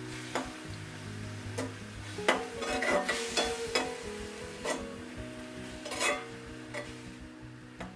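Spatula stirring chicken mince in a kadai, scraping and clinking against the metal pan, with light sizzling. The knocks come thickest about two to four seconds in and again around six seconds. Background music plays under it.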